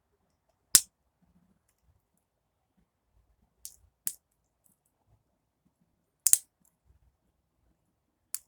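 Victorinox Super Tinker Swiss Army knife tools snapping open and shut on their springs: five sharp metallic clicks, the loudest about a second in and again past the six-second mark.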